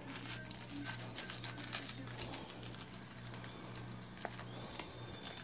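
Dry seasoning mix shaken from a paper packet, its granules pattering faintly onto raw beef in many small irregular ticks, with light rustling of the packet. A steady low hum runs underneath.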